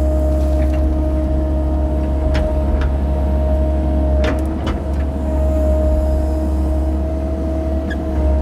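Mini excavator's engine running steadily under load, with a steady whine, as it works heavy mud. A few short sharp clicks or knocks come between about two and five seconds in.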